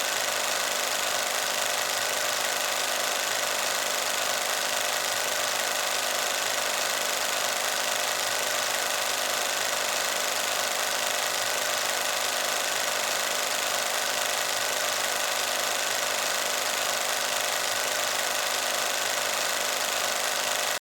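Film projector running steadily: an even mechanical clatter with hiss.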